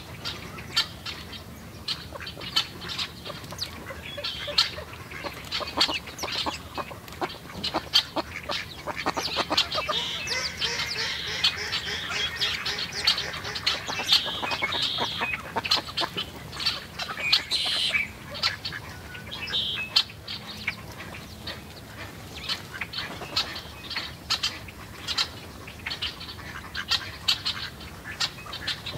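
Red-winged blackbirds and chickadees calling at a seed feeder: a dense run of short, sharp chips and ticks throughout, with a longer stretch of drawn-out calls through the middle.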